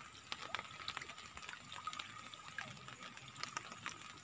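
Water trickling and dripping from a fishing lift net as it is raised out of a river, with many small scattered splashes.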